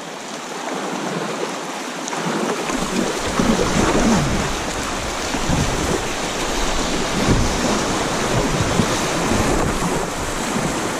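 River water rushing through a shallow riffle as a kayak runs down it, heard from on the kayak. About two and a half seconds in, a deep rumble of wind on the microphone joins the rush and the sound gets louder.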